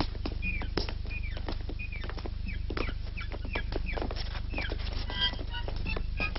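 Footsteps knocking on a stone lane, with hens clucking, over a steady low hum. A violin comes in near the end.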